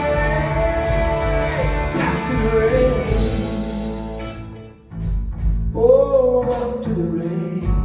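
Live band playing a country-rock song: a male voice singing over electric guitars and the band. The music eases off briefly just past halfway, then the next phrase comes in.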